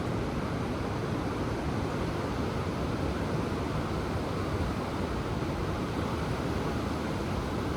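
Ocean surf washing ashore: a steady, even rush of waves with no single break standing out.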